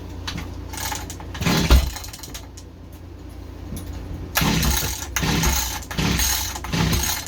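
Mantis mini tiller's small engine being pull-started on full choke: one recoil-starter pull about a second and a half in, then four quick pulls in a row near the end. The engine cranks but does not catch.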